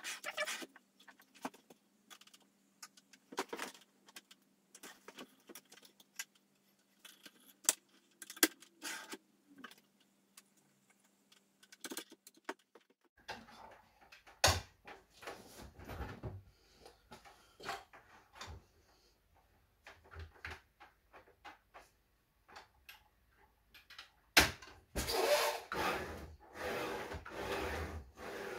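Clicks, knocks and rattles of a Ferex 216 mm sliding mitre saw being handled on a wooden table as its head and moving parts are worked by hand, with a burst of dense rattling and rubbing near the end.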